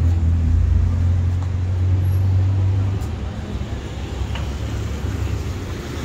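Road traffic passing along a city street. A vehicle's low engine rumble is strongest for the first three seconds, then eases back into general traffic noise.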